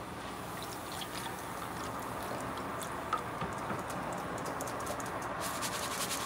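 Flattened rice (poha) deep-frying in hot oil in a wire-mesh strainer: a steady sizzle with light crackles, which come thicker near the end.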